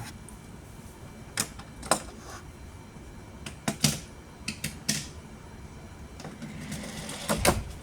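Hot Wheels die-cast toy car and plastic track pieces clicking and clattering in short, irregular sharp taps, with a heavier knock near the end.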